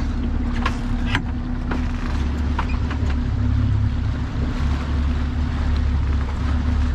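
Boat's twin 150 hp outboard engines running steadily, a low rumble with a constant hum over wind and water noise. A few sharp light knocks come in the first two to three seconds.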